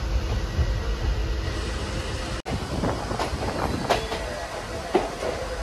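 Passenger train heard from aboard a coach: a steady rumble of wheels on rails, with clattering knocks and brief squeaks. The sound cuts out for an instant about halfway through.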